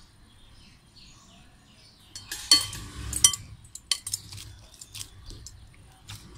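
Hands kneading oiled chakli dough in a glass bowl. From about two seconds in, sharp clicks and clinks sound as the bangles and ring knock against the glass.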